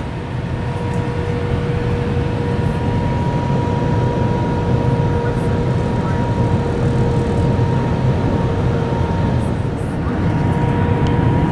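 Steady cabin roar of an Airbus A320-family jetliner's engines and airflow during landing, with a constant high whine over it. The level dips briefly near the end and then rises a little.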